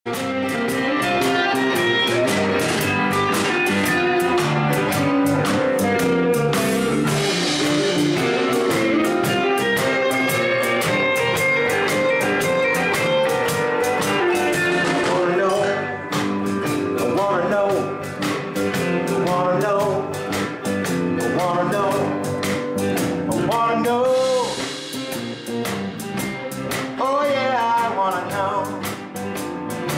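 Background music: a blues-rock song with a steady drum-kit beat and guitar, with singing that is clearest in the second half.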